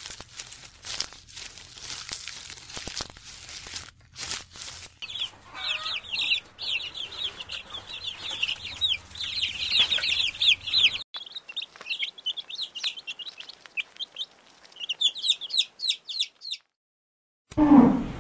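Chicks peeping: a fast, dense run of short, high, falling peeps starts about five seconds in and stops shortly before the end. Before it come scattered clicks and rustles; near the end there is a brief silence, then a loud low sound begins.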